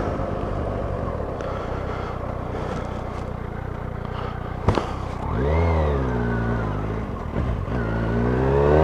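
Motorcycle engine running on the road. Its revs dip and climb again about five seconds in, and once more near the end, with a single sharp click just before the first change.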